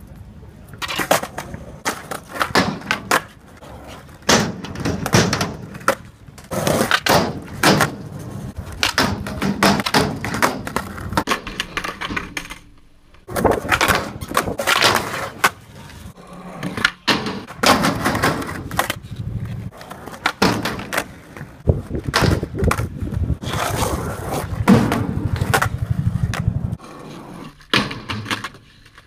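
Skateboard wheels rolling on concrete and up a ramp, with repeated sharp clacks as the board's tail and trucks strike the ground and the ramp's metal edge during tricks. The clacks come irregularly, many a second at times, with a brief pause about halfway through.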